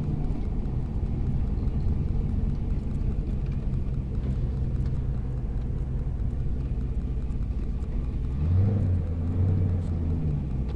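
2011 Cadillac CTS-V's supercharged 6.2-litre V8 running at low revs under way, a steady low exhaust drone. It swells louder for a moment about eight and a half seconds in.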